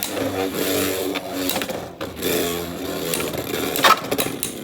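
Two Beyblade X spinning tops whirring and scraping against each other and the plastic stadium, with rattling clacks of contact and one sharp, loud clash about four seconds in.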